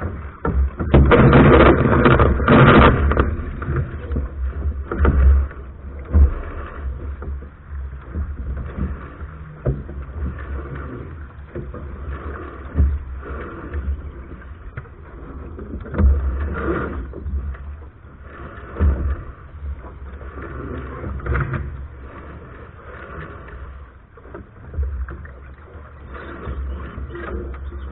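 Wind buffeting the microphone and water washing along the hull of a Soling keelboat under sail, in uneven gusts over a steady low rumble. It is loudest for a couple of seconds about a second in, with rustling and knocks as the crew works with the sails.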